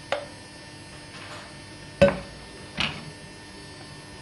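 Metal kitchenware knocking: a steel saucepan and metal jug, with a small click near the start, a sharp knock about two seconds in and a lighter, ringing knock just after, over a steady faint hum.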